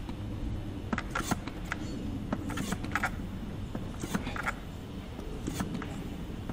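Hand-operated vacuum oil extractor being pumped, about a dozen short, unevenly spaced strokes of its plunger. The pumping builds vacuum in the reservoir to suck used engine oil up out of the engine from the top.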